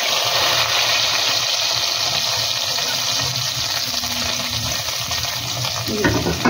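Hot ghee tempering with cumin and curry leaves (tadka) poured into cooked masoor daal in a clay pot, sizzling hard and slowly dying down. A spoon stirs it near the end.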